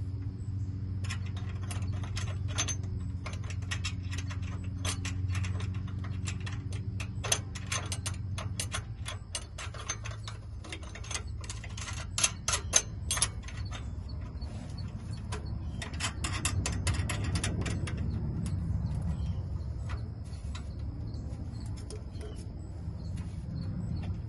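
Small irregular metal clicks and rattles from a U-bolt exhaust clamp being fitted on a muffler pipe joint, its nuts spun on by hand. A low steady hum underneath stops about nine seconds in.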